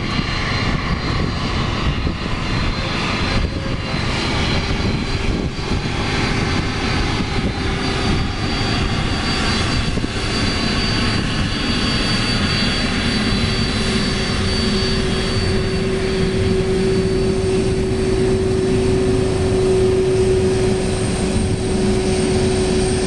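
Boeing 767-300 freighter's twin jet engines running at taxi power as the aircraft rolls past. A steady jet noise carries a low hum and a high whistle, and a second, higher whistle comes in about halfway through as it grows slightly louder.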